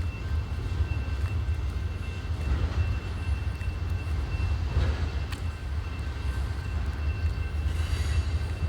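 A steady low rumble with two faint, steady high-pitched tones over it and a few faint clicks.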